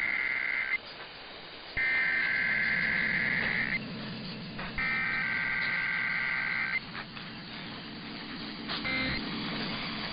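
EAS SAME digital header bursts: the rasping two-tone data signal sent three times, each burst about two seconds long with about a second's gap. Near the end a short end-of-message burst begins.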